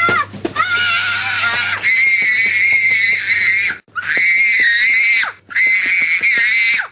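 A young child screaming in a tantrum: four long, high-pitched screams in a row, with short breaths between them.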